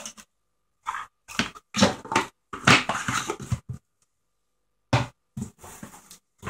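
Irregular short bursts of rustling and knocking from protein sample sachets and supplement tubs being handled and packed back into a box, with pauses in between.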